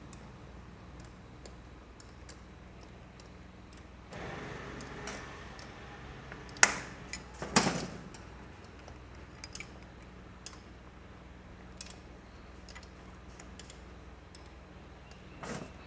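Light metallic ticks and clicks of hand tools working on a motorcycle engine, with a brief rustle about four seconds in and two loud sharp metal clanks about seven seconds in.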